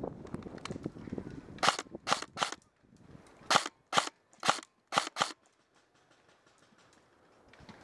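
Krytac LVOA-C electric airsoft rifle firing about eight single shots in quick strings of one to three, each a short, sharp report, between about one and a half and five and a half seconds in.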